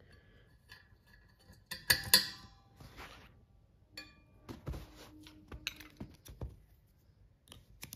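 Screwdriver and small screws on a finned metal heat-sink casing: scattered clicks and scrapes of the screwdriver tip on screw heads, with a loud, ringing metallic clink about two seconds in.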